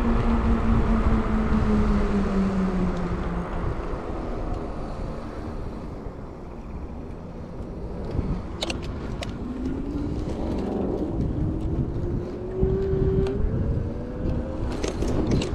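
Fat-tire e-bike's electric motor whining, its pitch falling as the bike slows toward a stop, then rising again about two-thirds of the way through as it pulls away, with a few sharp clicks and wind rumbling on the microphone underneath.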